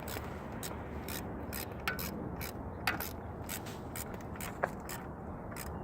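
A socket ratchet clicking in short, irregular strokes as bolts are turned, with a few sharper metallic clinks.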